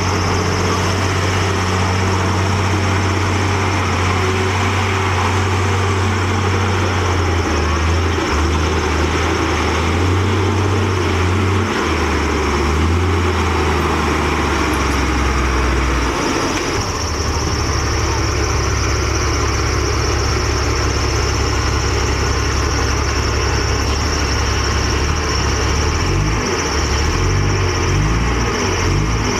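Komatsu D58E bulldozer's diesel engine running hard as the dozer works against a stuck dump truck, its engine note shifting pitch several times, dropping about halfway through and turning uneven near the end.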